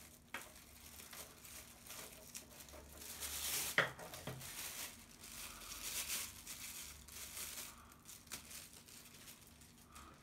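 Packaging crinkling and rustling as parts are unwrapped by hand, with a sharp click about four seconds in.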